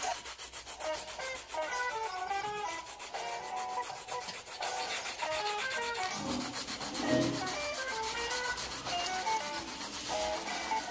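Pencil graphite scratching across paper in rapid back-and-forth shading strokes, under soft melodic background music.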